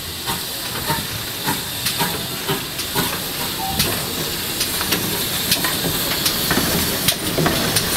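GWR 4200 class 2-8-0 tank locomotive No. 4270 passing slowly at close range, with a steady hiss of steam and scattered clanks and clicks from its running gear and wheels on the rails.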